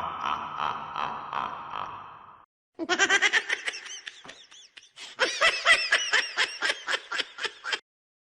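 A high-pitched laughter sound effect: rapid bursts of laughing in two runs, with a short pause between them. Before it, over the first two seconds, the tail of a rhythmic chant-like effect fades out.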